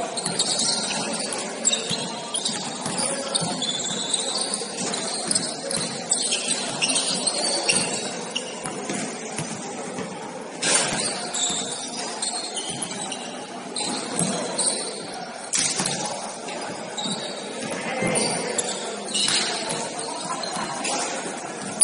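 Sounds of a basketball game in progress on a gym court: many short, high sneaker squeaks, with a few sharp thuds from the ball or players about halfway through and later, over a background murmur of voices.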